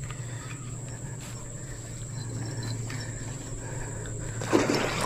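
Steady insect chorus with a constant high, thin tone, over a low steady hum. A short louder burst comes about four and a half seconds in.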